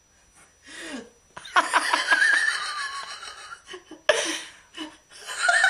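A person laughing: a long fit of giggling begins about a second and a half in, and a second burst of laughter comes just after four seconds.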